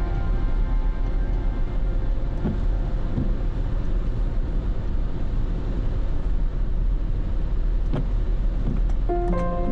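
Steady low rumble of a car driving in the rain, with a few faint ticks. Music fades out at the start and comes back in near the end.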